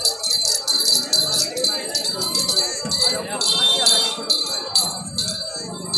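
Small bells jingling in a steady, quick rhythm, about three shakes a second, with music.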